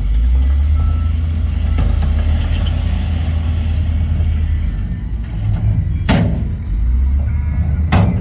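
Heavy diesel engine of earth-moving machinery running with a loud, low rumble, broken by two short sharp bursts of noise about six and eight seconds in.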